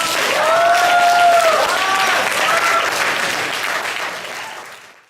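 Audience applauding at the end of a spoken-word poem, with a couple of long cheering whoops over the clapping in the first few seconds. The applause fades out near the end.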